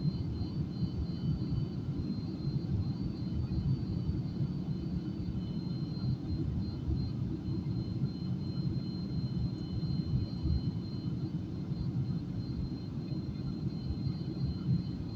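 Steady low rumble of engine and airflow noise inside an airliner cabin on its landing approach, with a faint steady high-pitched whine above it.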